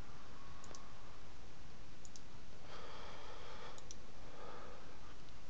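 Computer mouse clicks: a single click, then two quick double clicks about two and four seconds in, over a steady background hiss.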